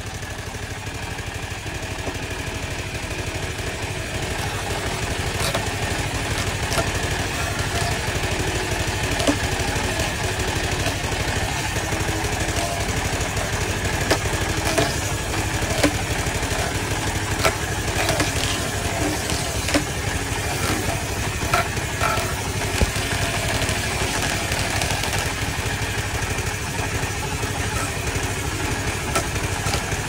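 Engine-driven table saw running steadily: a low engine hum with a haze of saw and belt noise that grows a little louder over the first few seconds. Scattered sharp knocks and clicks of wood being handled on the bench are heard throughout.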